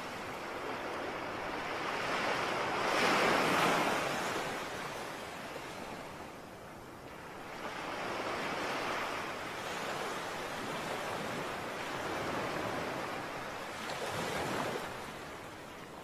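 Rushing water that swells and fades in several slow surges, the loudest about three seconds in.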